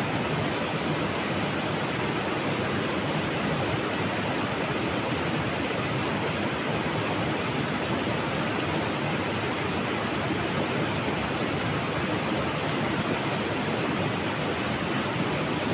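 Steady rush of a shallow river flowing over rocks and a stone weir.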